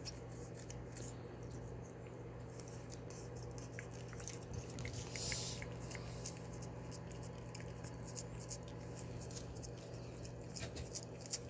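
Siamese cat licking paste from a squeeze-tube treat stick: faint, quick wet licking clicks and smacks, with a short rustle of the pouch about five seconds in.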